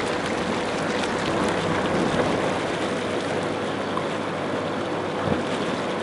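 Inflatable hot tub's air-bubble jets running, a steady hiss of bubbles churning the water, with a faint steady hum under it.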